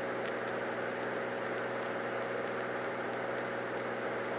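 Steady drone of a Cirrus SR22's piston engine and propeller in flight, heard through the headset intercom as an even hum with a few constant tones under a hiss.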